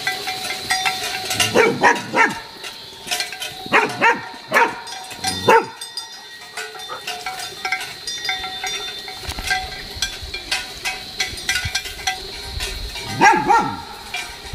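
Dog barking: a few short groups of two or three barks in the first six seconds, then a quiet stretch, then another pair of barks near the end.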